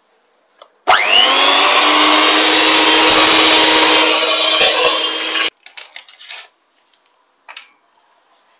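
Electric mixer beating eggs and sugar for cake batter. Its motor starts about a second in with a rising whine as it spins up, runs steadily for about four and a half seconds, then cuts off suddenly. A few short knocks follow.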